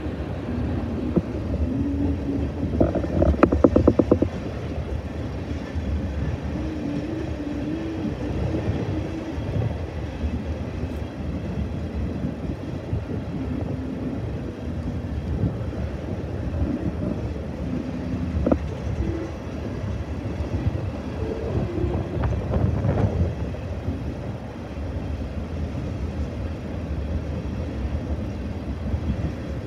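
Tank cars of an oil train rolling past: a steady rumble of steel wheels on rail, with a rapid run of clicks about three to four seconds in and a few single clicks later.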